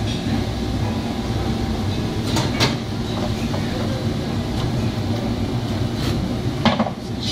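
Steady low rumble of a working kitchen, with a few sharp metal clinks of tongs and steel pans: two close together about two and a half seconds in and a louder one near the end.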